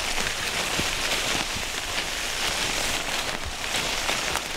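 Log being skidded by a Belgian draft horse across the forest floor: a continuous scraping rustle through leaves and twigs, with many small crackles.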